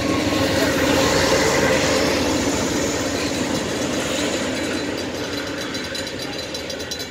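Amtrak Pacific Surfliner passenger train rolling past over the rails, its wheels rumbling and clicking. The sound fades in the second half as the last coach passes and the train moves away.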